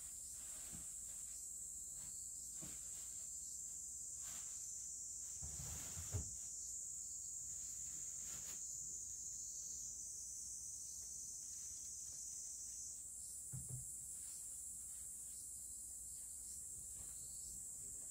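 Faint, steady high-pitched chirring of insects, their pitch shifting slightly about ten and thirteen seconds in, with two soft low thumps, one about six seconds in and one near fourteen seconds.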